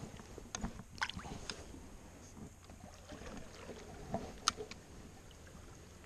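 Faint water sloshing and small splashes as a fish is let go into a shallow river, then scattered clicks and knocks of a spinning rod and reel being handled, the sharpest click about four and a half seconds in.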